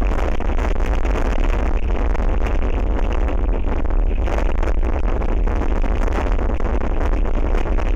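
Strong wind buffeting the outdoor camera's microphone: a loud, steady low rumble with rushing noise over it.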